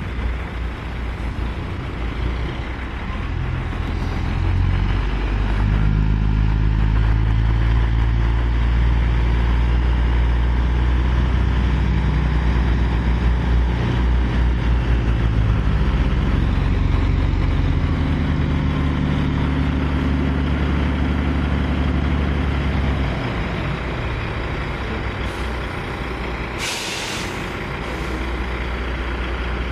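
Heavy diesel engine of a loaded logging semi-truck pulling slowly, its low note rising and then shifting pitch about two-thirds of the way through. Near the end comes a short, sharp hiss of air from the truck's air brakes.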